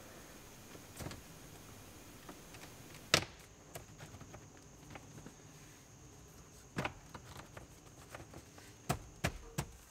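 Plastic lower dash trim panel being clipped into a car's dashboard: scattered sharp clicks and knocks, the sharpest about three seconds in and a small cluster near the end.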